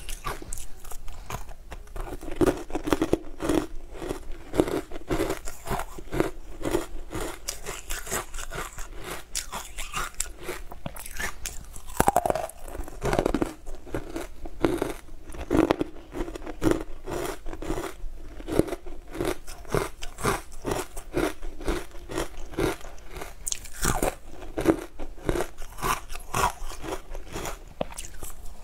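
Crunching as frozen chunks coated in green powder are bitten and chewed, a steady run of crisp crunches, a few each second.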